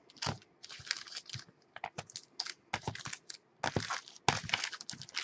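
Hands handling items and their packaging: an irregular run of clicks, taps and short rustles.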